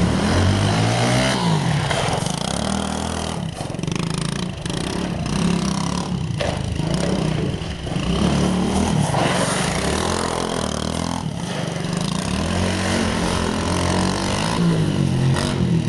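Small dirt bike's engine running at low speed, revving up and falling back again and again as the throttle is blipped.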